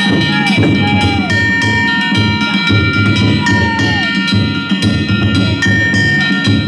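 Danjiri float music: a taiko drum beating steadily with metal gongs ringing over it.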